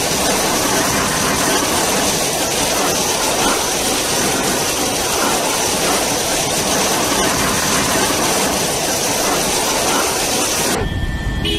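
Cyclone-force wind blowing hard through a palm tree, a loud steady rushing noise with the gusts buffeting the phone's microphone. It cuts off abruptly near the end.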